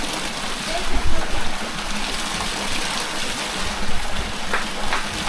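Spring water gushing steadily from the spouts of a five-spout spring (panchdhara).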